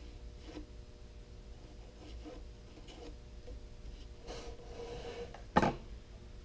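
Faint pencil-marking sounds on a cedar post: light taps and a scratchy stroke as a line is drawn along a square, then one sharper knock of the square set against the wood about five and a half seconds in.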